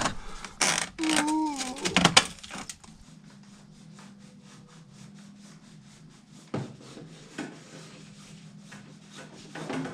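12mm plastic PER water pipe being pushed through a gap, rubbing and scraping against the surfaces around it, with a short wavering squeak a little after a second in. After about three seconds it drops to faint, rapid scratching over a low steady hum.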